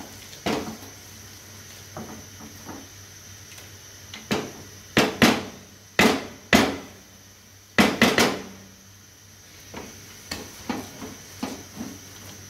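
Wooden masher pounding cooked chana dal and shredded chicken in a metal pot, knocking against the pot in irregular strokes. The knocks come thickest and loudest in the middle.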